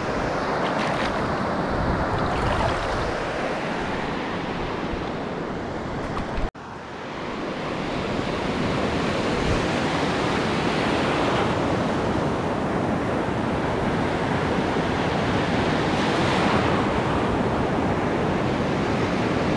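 Ocean surf breaking and washing over a sandy beach in a steady rush. The sound cuts out for an instant about six and a half seconds in, then resumes.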